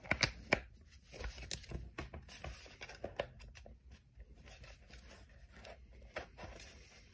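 Small clicks and knocks of a plastic ESBE valve actuator head being handled and fitted onto a brass valve body, loudest in the first second.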